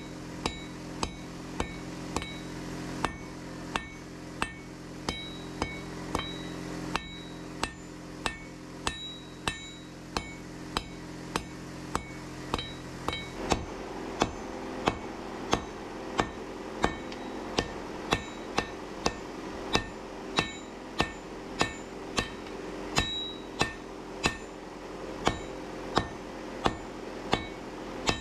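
Hand hammer striking a red-hot steel knife blade on an anvil in steady forging blows, about one and a half a second, each with a short metallic ring. A steady low hum runs underneath and changes about halfway through.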